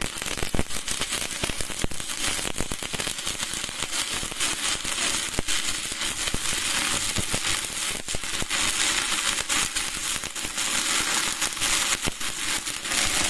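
Stick-welding arc from a Spark 400 MMA DC inverter welder burning a No. 8 electrode: the arc is struck right at the start and then crackles steadily, with dense sharp pops and spatter, without a break.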